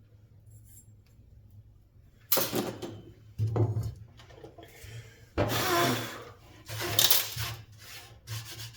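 Fan motor parts and tools being handled on a work surface: about five separate clattering and rubbing noises, the longest a scraping rub about halfway through.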